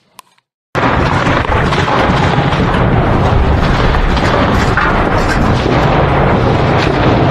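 Heavy machine-gun fire, dense and unbroken, cutting in abruptly under a second in after a near-silent start.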